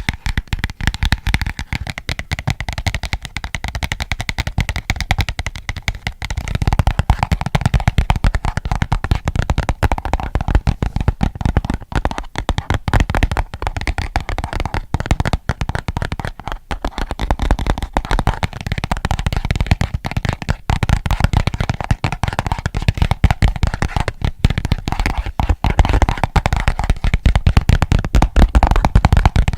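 Rapid, continuous fingertip and nail tapping on an object, close to the microphone, many taps a second; about six seconds in the tapping grows heavier and louder.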